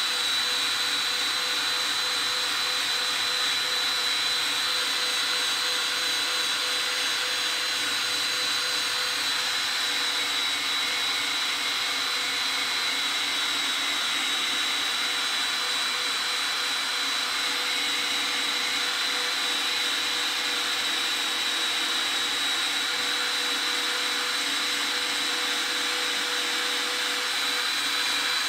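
Cordless drill running steadily at speed, spinning a rubber eraser wheel against a truck's painted door panel to rub off leftover badge adhesive, with a steady high whine.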